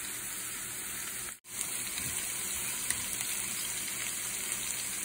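Chopped spring onions sizzling in hot oil in a frying pan: a steady hiss, broken by a brief gap about a second and a half in.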